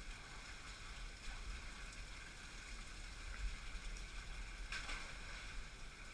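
Faint steady wash of water running and splashing in a slot-canyon pool, over a low rumble.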